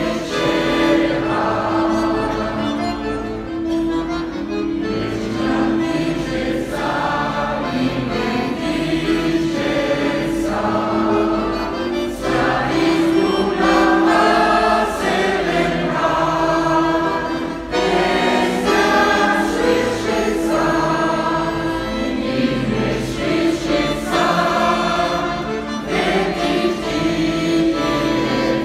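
Large mixed choir of amateur men's and women's voices singing a Russian song together, in sung phrases with long held notes.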